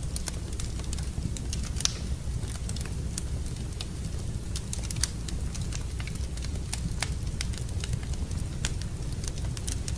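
Wood fire crackling in a fireplace: irregular sharp pops and snaps, a few louder ones, over a steady low rumble.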